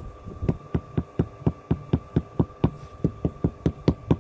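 Rubber mallet tapping a natural stone paving slab down into its cement bed to level it: a steady run of dull knocks, about four a second, starting about half a second in.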